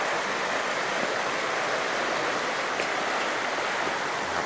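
A shallow river rushing over rocks: a steady, even hiss of flowing water.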